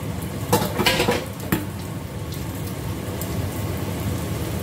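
Egg frying in a stainless steel wok over a gas burner, with a steady low rumble underneath. A metal cup clatters and scrapes against the wok a few times, about half a second to a second and a half in.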